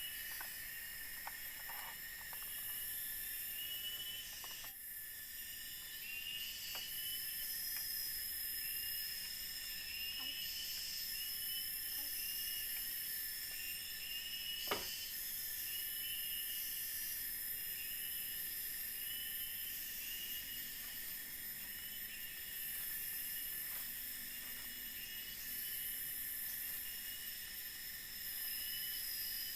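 Forest insects in a dense chorus: several high-pitched steady buzzes and rapid chirping trills, some starting and stopping every few seconds. A few faint clicks and one sharp knock come about fifteen seconds in.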